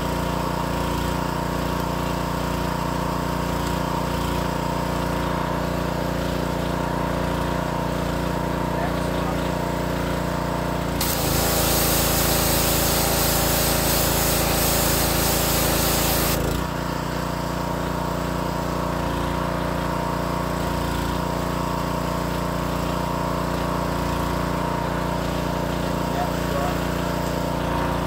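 Wilks USA TX625 petrol pressure washer's 7 hp four-stroke engine running steadily. About eleven seconds in, the high-pressure jet comes on with a loud hiss of water spray for about five seconds, and the engine note changes as the pump takes the load. Then it settles back to the steady run.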